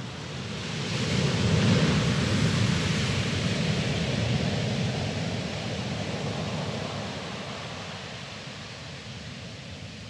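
Sea wave breaking over a pebble beach: the rushing noise swells about a second in, is loudest around two seconds, then slowly dies away over several seconds.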